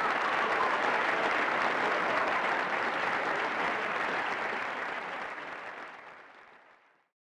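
Moderate audience applause, a steady dense clapping that fades out to silence about six to seven seconds in.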